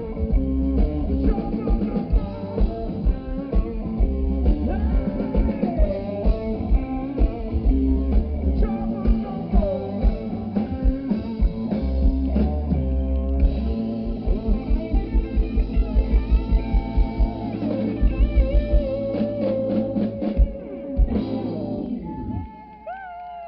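Live band with electric guitar and drum kit playing a rock-blues number. It builds to fast, even drum hits, ends on a final hit about three-quarters of the way through, and the music dies away.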